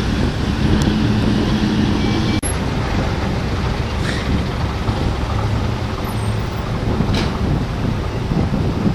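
Heavy truck's engine running steadily as it slowly tows a low-loader trailer carrying a tram, a low rumble. Two short hisses come about four and seven seconds in.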